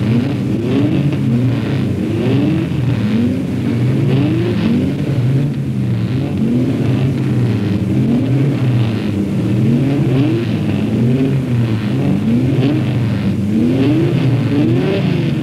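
Racing car engines revving on the starting grid. The throttles are blipped again and again in overlapping rising surges, roughly one a second, as the cars wait for the start.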